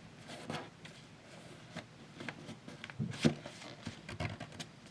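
Thick paper being handled and folded by hand: scattered rustling and rubbing as it is creased, with a sharper crackle about three seconds in.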